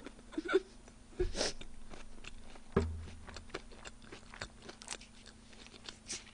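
Close-miked chewing with small wet clicks and crunches of the mouth. There is a single light knock a little under three seconds in.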